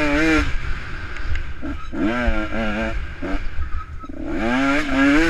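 150 cc dirt bike engine revving up and down as the rider accelerates and backs off on a slippery trail. The pitch climbs at the start, drops, climbs again about two seconds in and holds, dips around three to four seconds, then rises once more near the end.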